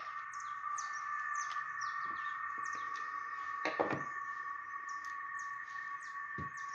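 A bird chirping over and over, quick short notes that each drop in pitch, over a steady high hum. A couple of light knocks, about halfway through and near the end, come from chainsaw parts being handled.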